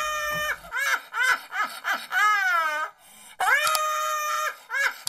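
A woman's shrieking, high-pitched laughter: a long held squeal, a run of short hooting yelps, then a second long squeal about three and a half seconds in, followed by more short yelps.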